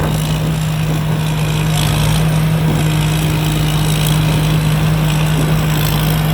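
Combine harvester's Hino J08C six-cylinder diesel engine running steadily at working speed while harvesting rice, with an even machine hum and no change in pitch.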